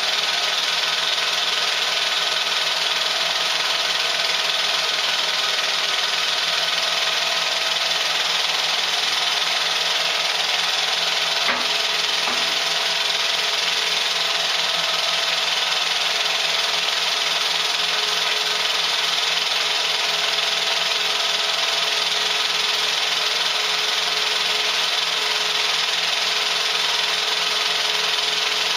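Pathescope 200B 9.5mm film projector running at a steady pace: an even mechanical whirr and rattle of the motor and film transport, unchanging throughout.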